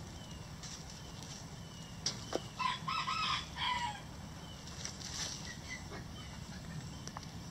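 Rooster crowing once about two and a half seconds in: a cock-a-doodle-doo of three short notes and a longer falling last note. A brief sharp sound comes just before it, and hens cluck in the background.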